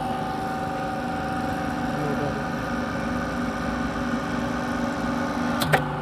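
Electric hydraulic power pack of a rebar-coupler crimping press running: a steady motor-and-pump hum made of several held tones, with a sharp click near the end.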